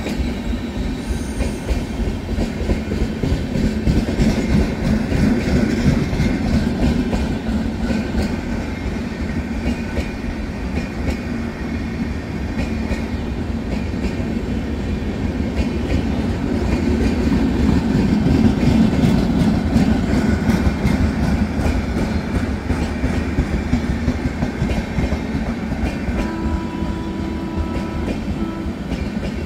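Passenger express train's LHB coaches running past at speed through a station without stopping: a steady rumble with rapid clattering of wheels over rail joints, swelling twice as heavier stretches of the train go by.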